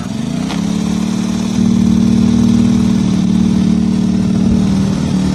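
Makita GD0601 electric die grinder switched on, run off a portable generator. The pitch rises briefly as it spins up, then settles into a steady hum along with the generator's engine. The hum grows louder about one and a half seconds in.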